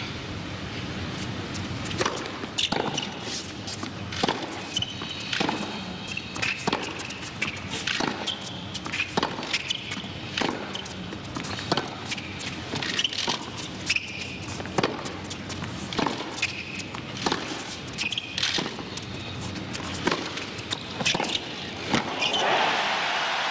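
Tennis rally on a hard court: a long run of crisp racquet strikes and ball bounces, about one every half second to a second, in a hushed stadium. Crowd applause swells near the end as the point finishes.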